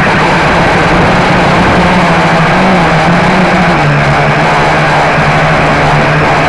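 Blade 350 QX quadcopter's four brushless motors and propellers running, loud and close through the onboard camera's microphone. A steady hum rises and falls slightly in pitch as the throttle changes, over an even rushing noise.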